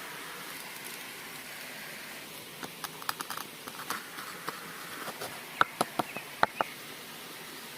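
A run of sharp, irregular clicks and taps, loudest in a few knocks near the middle, over a steady outdoor hiss.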